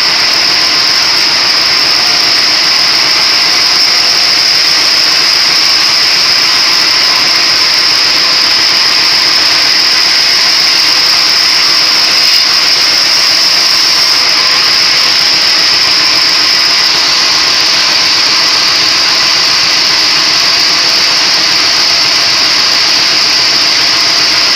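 A motor-driven splitting machine running steadily at a constant level, with a strong high-pitched hiss over its mechanical noise.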